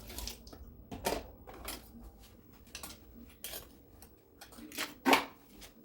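Dishes and cutlery clinking against each other as they are washed by hand in a sink: a series of separate sharp clinks, the loudest about five seconds in.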